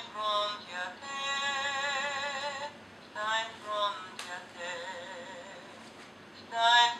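Animated plush dog toy in a gondolier costume singing a song in short phrases with wavering held notes. The phrases are separated by pauses, with a quieter gap in the middle broken by a single click, and the singing starts again near the end.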